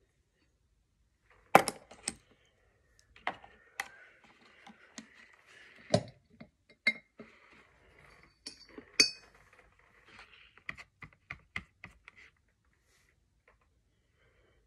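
Small plastic makeup items, lip gloss tubes, caps and palettes, clicking and knocking as they are handled and set down on a table: a string of sharp taps, the loudest about a second and a half in, and again around six and nine seconds, stopping about twelve seconds in.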